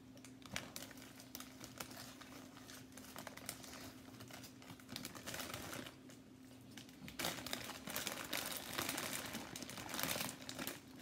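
Thin plastic bag crinkling as hands dig popcorn out of it, a run of small crackles that grows denser and louder about seven seconds in.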